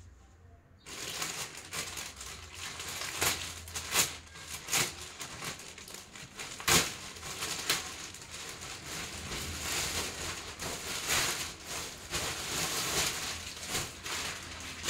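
Packaging around newly bought pillows crinkling and rustling as it is opened and handled, starting about a second in, with a few sharper cracks.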